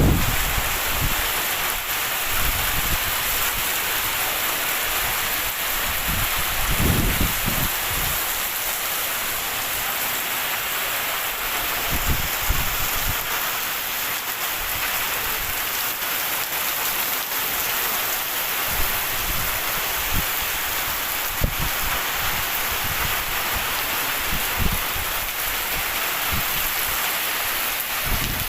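Heavy rain pouring steadily, a dense hiss of drops on surfaces, with a few brief low rumbles, the strongest about seven seconds in.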